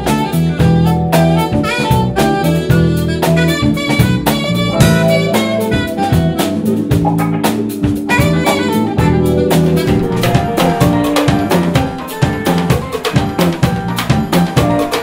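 Live jazz band playing: saxophone runs over bass and drum kit. From about ten seconds in, busier drumming comes forward, including small drums struck with sticks.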